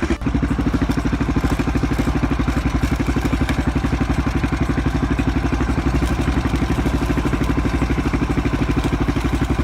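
Engine running steadily at idle, with an even, rapid pulse.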